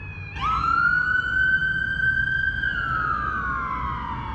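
Emergency vehicle siren wailing: the tone sweeps up quickly about half a second in, holds high for about two seconds, then slowly falls.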